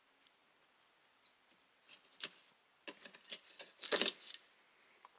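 Light clicks and clatters of thin wooden strips knocking together as they are handled. They start about two seconds in and are loudest a little before the end.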